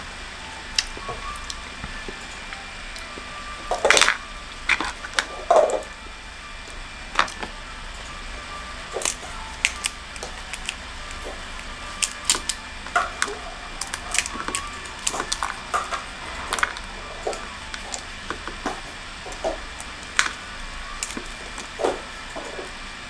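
Brittle shells of dried tamarind pods cracking and crumbling as they are peeled by hand, with broken pieces dropping into a bowl: irregular crackles and snaps, loudest about four to six seconds in.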